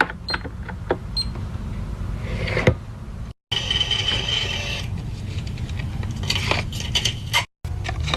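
Handling sounds of a taped paper squishy: scraping and clicking of paper and tape under the fingers over a low rumble, cutting off abruptly twice.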